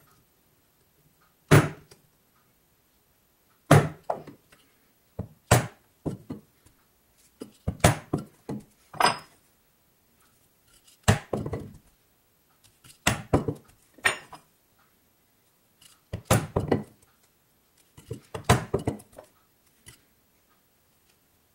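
Mallet striking a pricking iron down through veg-tan leather to mark stitch holes, a sharp knock about every two seconds, several blows followed by a few quicker, lighter taps.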